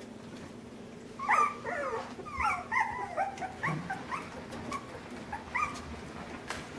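Miniature American Shepherd puppy whining and yipping in a quick run of short, high-pitched calls that rise and fall, starting about a second in and trailing off near the end.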